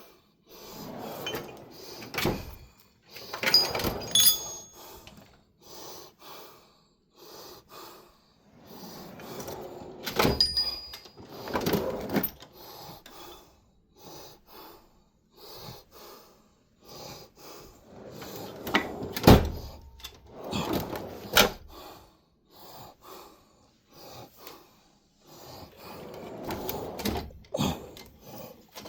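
Tool chest drawers sliding open and shut, with scraping and irregular knocks of tools and metal being handled; the sharpest knocks come about 19 and 21 seconds in.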